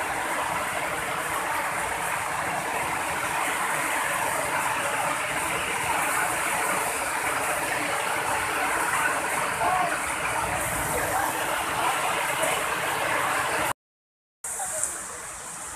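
Steady rushing of a swollen, flooding river pouring over a concrete weir, mixed with heavy rain. It cuts out briefly near the end and comes back quieter.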